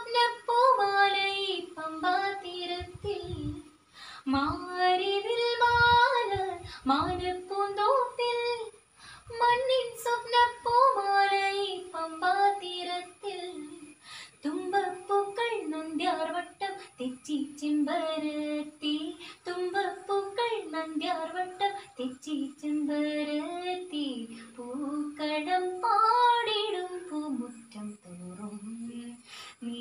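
A girl singing a Malayalam Onam song (Onappattu) solo, in long melodic phrases with ornamented, gliding notes and brief pauses for breath.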